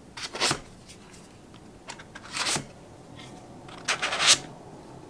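Polymer pistol magazines sliding down into the tight cut-foam slots of a hardshell pistol case: three short scraping rubs, each about half a second long.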